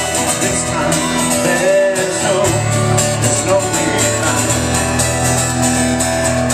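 Live band playing a song: drum kit with cymbals, electronic keyboard and guitar, with low notes that change about two and a half seconds in and again near the middle.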